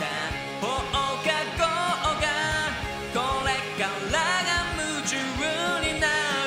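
A song sung in Japanese: a solo voice singing over a backing track with a steady drum beat.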